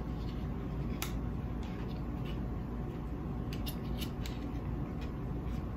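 Crinkling of freezer paper and light clicks of a glass mason jar being handled as it is turned over and shaken to mix its contents, heard over a steady low background hum.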